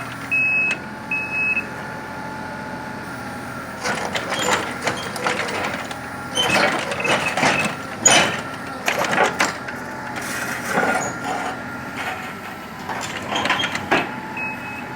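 Small Kubota machine's engine running steadily as it is driven up ramps onto a truck, with a high warning beeper sounding short beeps near the start and again near the end. Louder bursts of clatter or voices come and go in between.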